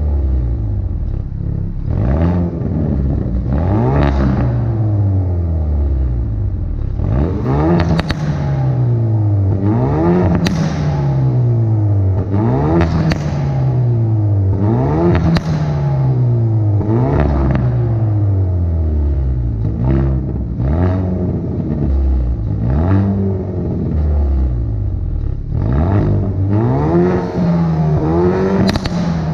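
Hyundai i30N Performance's turbocharged four-cylinder engine and exhaust, revving up and falling back again about every two to three seconds. Sharp pops and crackles come at the top of each rise as the throttle is lifted.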